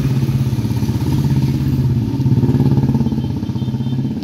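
A motorcycle engine running with a steady low pitch, growing louder to a peak midway and then easing off.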